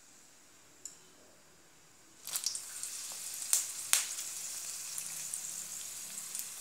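Whole dried red chillies dropped into hot mustard oil for a tadka. After a faint hiss, a loud sizzle starts about two seconds in, with a few sharp crackles, then settles into steady frying.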